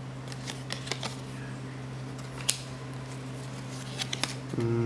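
Cardboard trading cards being slid and flicked through in the hands: scattered soft clicks and slides, with one sharper snap about two and a half seconds in, over a steady low hum.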